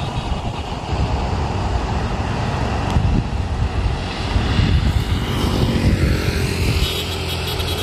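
Outdoor background noise with a steady, heavy low rumble and no speech.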